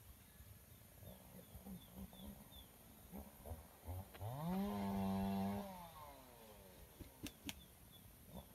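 Rooster crowing once, about four seconds in: a long call that rises, holds, then falls away. A few short low clucks come before it, and two sharp clicks near the end.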